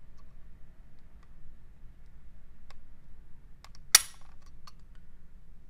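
Walther PPS M2 striker-fired pistol dry-fired slowly against a trigger-pull gauge: a few faint clicks, then about four seconds in a single sharp snap as the trigger breaks and the striker releases, at about 2.4 kg of pull.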